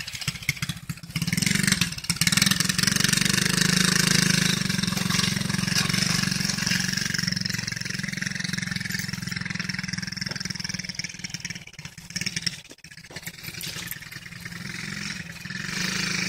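Small youth dirt bike's engine running steadily as the bike is ridden around, its level dipping briefly about three-quarters of the way through.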